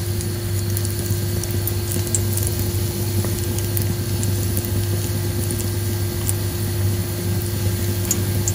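Gram-flour pakoras deep-frying in hot mustard oil in an iron kadhai: a steady sizzle with fine crackling, over a steady low hum.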